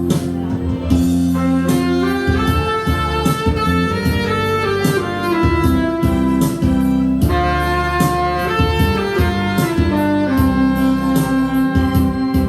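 Saxophone playing a slow melody in long held notes over a band accompaniment with drums and strings.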